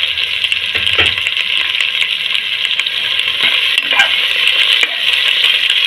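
Sliced onions, green chillies and grated ginger sizzling in hot oil in a pan, stirred with a spatula that clicks and scrapes against the pan now and then.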